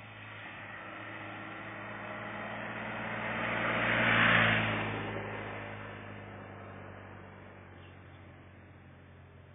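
BMW GS adventure motorcycle with a flat-twin engine riding past. Its engine grows steadily louder as it approaches, is loudest about four seconds in as it passes close by, then fades as it rides away.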